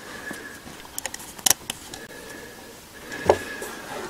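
A few small sharp metallic clicks and taps as fingers fit a washer onto the distributor's terminal stud, the loudest about one and a half seconds in and another just after three seconds.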